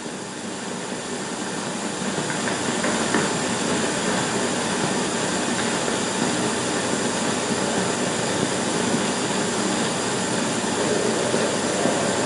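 Steady, even rushing noise with no speech, slowly growing a little louder over the first couple of seconds, on an old 16mm film soundtrack.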